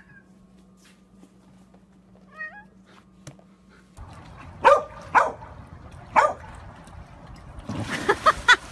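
Several short, sharp animal calls, then a splash as a person on an inflatable float tips into a swimming pool near the end. Before that there is a faint short call about two seconds in.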